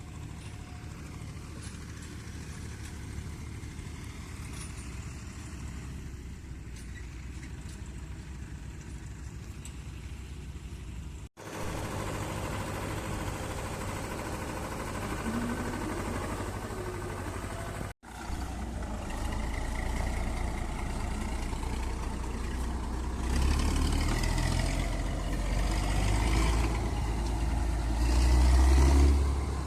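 Diesel tractor engine running steadily, in three separate takes. The last take is louder, with a deep rumble that swells near the end as the engine works harder.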